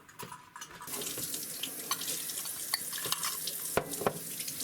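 Water running steadily from a kitchen tap, starting about a second in, with a few light clicks and two sharper knocks late on.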